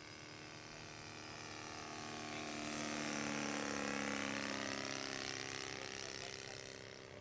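Saito FG-61TS 61cc four-stroke gas twin engine of a large RC plane in flight, passing overhead. It grows louder to a peak about four seconds in as the plane comes close, then fades as it flies away.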